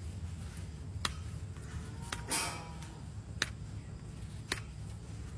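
Hoof-trimming tools cutting separated horn from a cow's claw: sharp clicks about once a second over a low steady hum.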